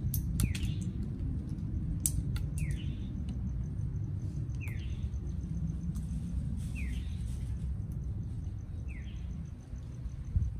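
A bird gives a short chirp about every two seconds, while Amazon parrots crack pistachio shells in their beaks, making sharp snaps that come mostly in the first few seconds. A steady low rumble runs underneath.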